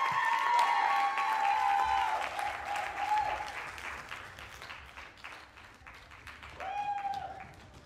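Theatre audience applauding with high-pitched cheers over the clapping. The applause thins out and fades during the second half, and one more cheer rises near the end.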